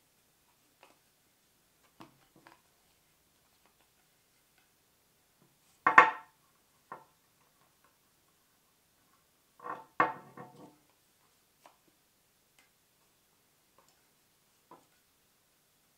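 An axe is set down on a wooden table with a sharp knock about six seconds in. About four seconds later comes a cluster of knocks and rattles as it is handled on the tabletop, with faint clicks of handling between.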